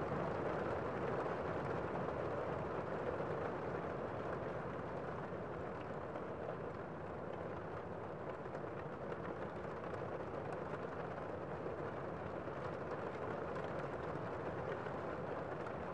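Steady city street noise, mostly the even rush of traffic, with no distinct horns, voices or knocks standing out.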